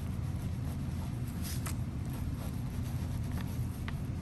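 Ballpoint pen writing on paper, a few faint short strokes, over a steady low hum.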